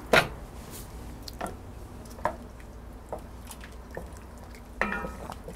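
A wooden spoon stirring a thick lamb stew in an enameled cast-iron pot: soft wet squishing with scattered light knocks, after a sharp tap right at the start.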